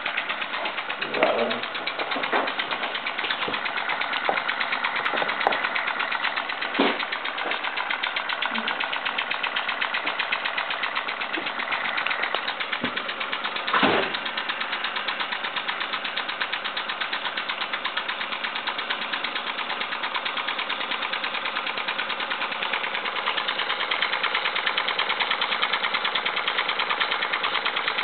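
Mamod toy stationary steam engine running in steam: its small oscillating cylinder chuffs and ticks in a fast, even beat as the flywheel spins. A few louder knocks stand out in the first half, the loudest about halfway through.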